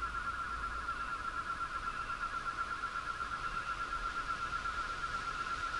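A steady high tone that pulses rapidly, like an electronic warble or an insect trill.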